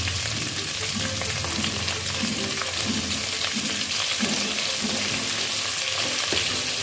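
Potatoes and cauliflower sizzling steadily in mustard oil in an aluminium pot on a low flame.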